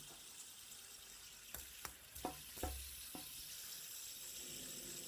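A faint steady hiss, with five light clicks and taps in the middle.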